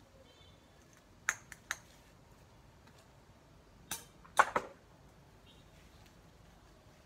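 Sharp clicks and knocks from hand work at the ground among cut branches: three about a second and a half in, and three more, the loudest, around four seconds in.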